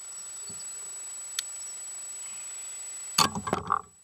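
Steady hiss with a thin, constant high whine, a single sharp click about a second and a half in, then a short burst of loud knocking and clattering near the end.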